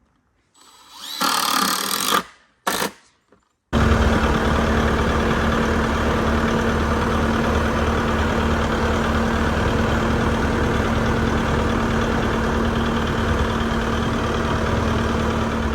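A power tool starts with a short swelling burst, then runs steadily and loudly for about twelve seconds with a constant hum, and cuts off abruptly.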